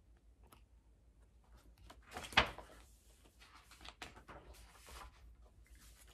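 Pages of a large hardcover picture book being handled and turned: soft paper rustling and light clicks, with one sharp knock of the book about two and a half seconds in.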